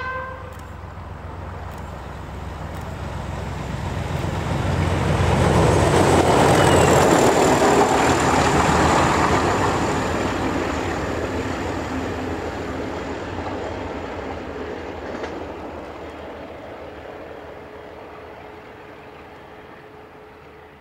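Class 31 diesel-electric locomotive, its English Electric V12 engine throbbing as it approaches, passes close by about six to eight seconds in, and fades away. A high whine drops in pitch as it passes. The end of a horn blast sounds right at the start.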